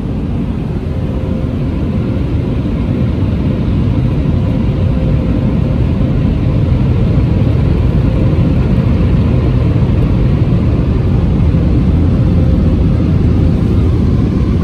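Touchless car wash dryer blowers blasting air over the car, heard from inside the cabin: a loud, steady rushing drone, deepest in the low end, that builds over the first several seconds and then holds.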